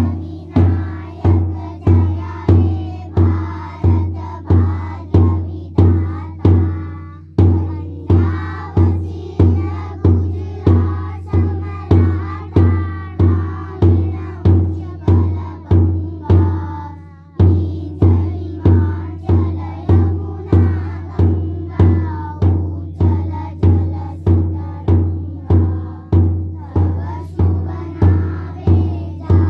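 A large bass drum beaten with a stick at a steady marching beat, about one and a half strokes a second, with children singing together over it. The beat breaks off briefly twice, about 7 and 17 seconds in.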